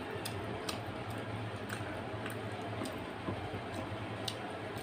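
Fingers mixing rice and curry on a plate by hand, with soft squishing and scattered sharp little clicks, over a steady low background hum.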